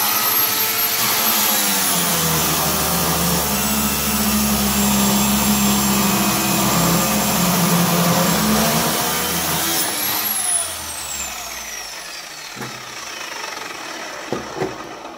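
Parkside PMTS 180 A1 1280 W metal cut-off saw, its 180 mm abrasive disc grinding through a 5 mm stainless steel flat bar: a steady high motor whine over harsh grinding. About ten seconds in the cut ends and the motor is switched off, its whine falling away as the disc spins down.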